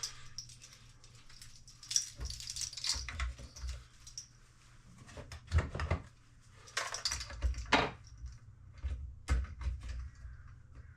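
Plastic wiring-harness connectors being handled and plugged into an electric motorcycle's motor controller: irregular clicks, light knocks and rustling of wires.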